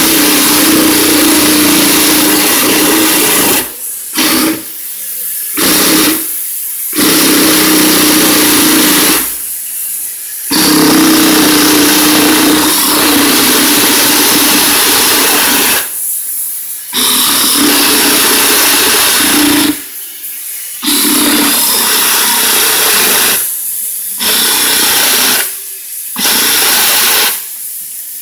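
Cordless reciprocating saw cutting through a black plastic exhaust part, its blade running loud and steady. The saw stops briefly and restarts every few seconds, about eight times.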